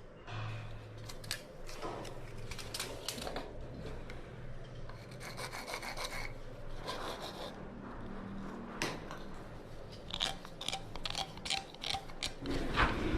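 Irregular scraping and rubbing on plumbing pipe and fittings, broken by sharp clicks and knocks as the parts are handled and worked by hand.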